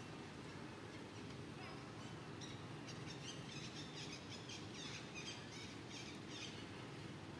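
Outdoor ambience with a steady low background rumble, and a small bird chirping in a quick repeated series from about two and a half seconds in until near the end.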